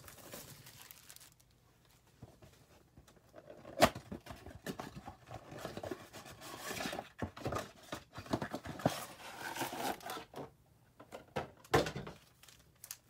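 Cardboard and wrapping of a 2020 Bowman Mega Box of baseball cards being torn open, then foil card packs rustling and crinkling as they are handled. Two sharp clicks stand out, one about four seconds in and one near the end.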